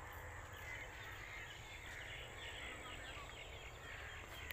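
Quiet rural field ambience: a steady low rumble under faint, repeated high chirps of small birds.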